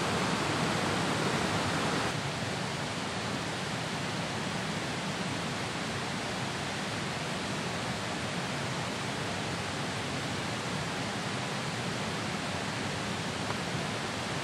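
Steady rush of running water, an even noise that drops slightly in level about two seconds in and then holds.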